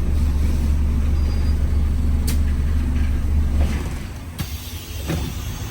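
Inside a Wright Gemini 2 hybrid double-decker bus: a steady low drive-train drone that drops away about four seconds in, with a sharp click about two seconds in and another just after the drone stops.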